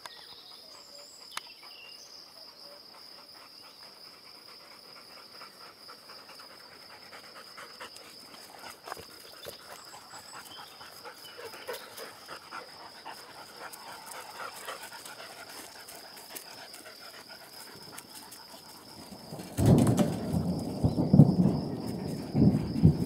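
Dogs panting hard close by, much louder from about three-quarters of the way in, after a stretch of faint panting as they run up. A steady high whine runs underneath throughout.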